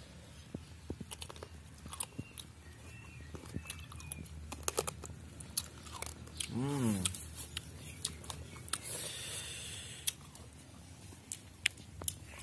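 Someone biting and chewing slices of crisp raw green mango coated in chili salt: scattered short crunches and wet mouth clicks. A short voiced sound rises and falls about six and a half seconds in.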